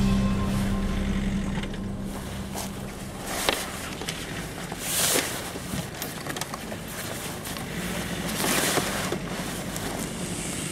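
A heavy fabric car cover rustling and sliding as it is dragged off the car, in a few swishing swells with the odd click. The tail of the intro theme music fades out in the first two seconds.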